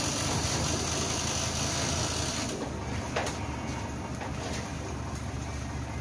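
Truck engine running steadily to drive the hydraulics of a Furukawa Unic UR-V340 truck-mounted crane as it lowers a slung load. A high hiss over it cuts off about two and a half seconds in, and there is a single click a little after three seconds.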